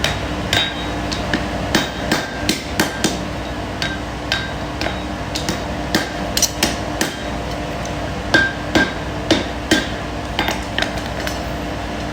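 Farrier's hammer striking hot steel on an anvil while forging a horseshoe: a run of sharp blows at an uneven pace, two or three a second at times with short pauses between runs, some blows ringing briefly, over a steady hum.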